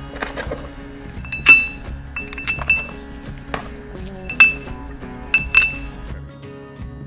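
Several sharp metallic clinks, some ringing briefly at a high pitch, as the weight parts are fitted into the aluminium sheave of a CFMOTO primary clutch (variator). Background music plays throughout.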